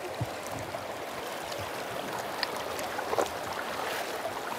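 Steady rush of river water flowing over stones, with a few brief ticks.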